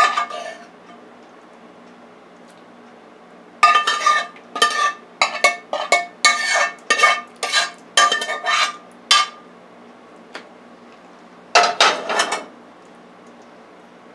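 Metal utensil scraping and knocking inside a metal frying pan as the vegetables are emptied out. There is a single knock at the start, then a quick run of about a dozen ringing scrapes and taps from about three and a half seconds in, and a short burst of a few more near the end.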